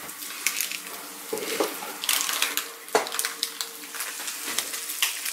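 Black bean spaghetti and vegetables sizzling and crackling in a frying pan. A steady hum comes in about a second in, and a single sharp knock sounds about three seconds in.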